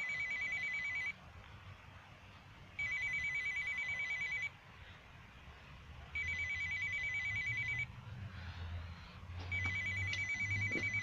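Apartment door-intercom call panel ringing a flat: a fast-trilling electronic call tone in bursts of about a second and a half, repeating about every three and a half seconds. The call goes unanswered.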